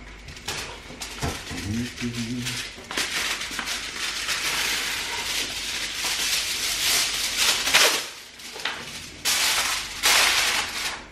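Aluminium foil crinkling and rustling as a sheet is pulled from the roll and handled, then crimped down over the edges of a baking dish, with louder crackling near the end.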